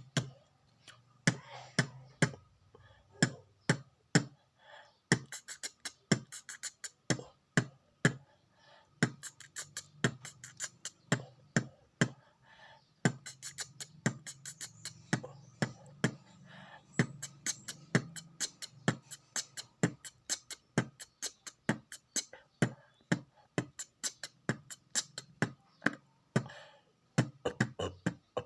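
Vocal beatboxing imitating a marching-band drum cadence: quick mouth-made snare-like hits and low drum thumps in a driving rhythm, broken by short pauses every few seconds.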